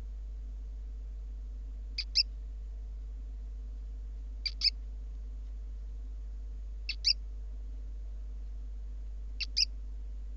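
Gecko chirping: a short, sharp double chirp, four times, about every two and a half seconds, over a steady low hum.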